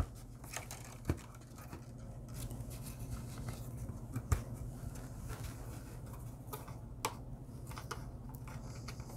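Faint scratching and a few light clicks as hands handle and press HO-scale track and a turnout down onto cork roadbed, over a steady low hum.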